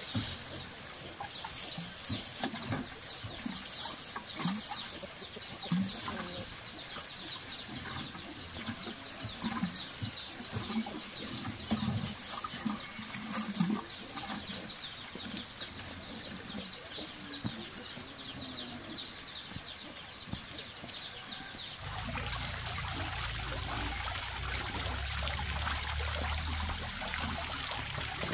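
Chickens clucking now and then, with a fast, high chirping running over them. About 22 seconds in, this gives way abruptly to an even, steady noise with a low rumble.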